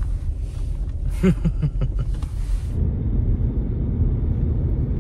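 Steady low rumble of a car heard from inside the cabin while riding. About a second in there is a short pitched sound, like a brief voice or whine.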